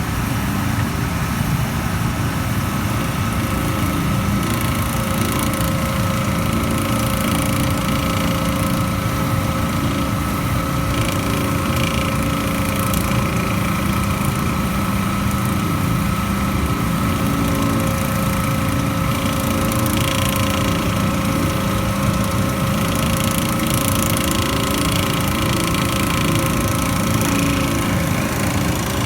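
A PAN760SF unit running steadily, with a grinding noise that comes and goes over its running sound, several times. The grinding is still there after a new fan belt, so the belt is not the cause.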